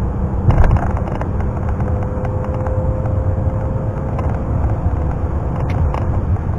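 BMW E39 530i's 3.0-litre M54B30 inline-six pulling under throttle at freeway speed, heard from inside the car with steady road and wind rumble, and a faint engine whine that rises slowly. The engine is running smoothly on its fresh oil, and there is a brief bump about half a second in.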